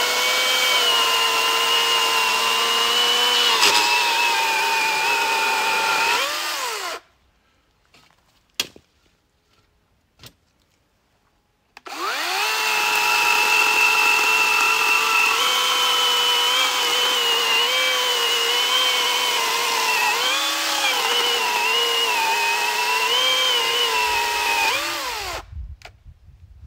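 Cordless battery electric chainsaw motor running at a steady high whine, its pitch sagging now and then as the chain cuts into a log. It stops about seven seconds in, then starts again about five seconds later with a rising whine. It runs with several dips in pitch under load and cuts off near the end.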